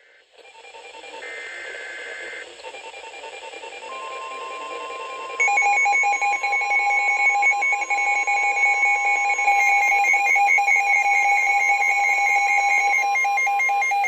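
NOAA weather radio warning alert: a short burst of screeching two-tone SAME data header about a second in, then the steady 1050 Hz warning alarm tone from about four seconds in. From about five and a half seconds in, Midland WR-100 weather radios add their own loud pulsing alarm beeps, triggered by the warning.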